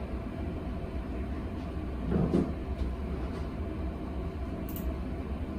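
Steady low rumble, like vehicle road noise, with a brief louder sound about two seconds in.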